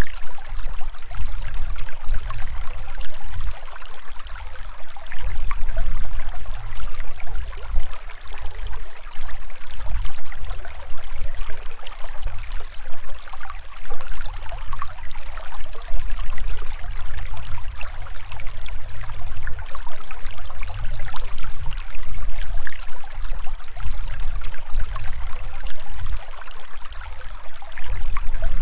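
Shallow stream rushing and splashing over rocks right beside the microphone: a steady, full water noise with a low, uneven rumble underneath.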